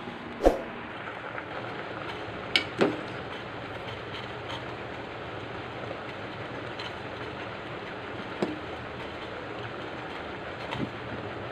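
Steady hiss of a pot boiling on a gas stove, with a ladle knocking and scraping against the steel pot: one sharp clank just after the start, two close together about two and a half seconds in, another about eight seconds in and a few light clinks near the end.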